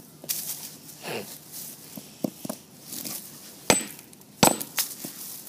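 Claw hammer striking a chunk of brick on a wooden board to break it up: a few light knocks, then two sharp, loud blows close together late on, one with a brief metallic ring.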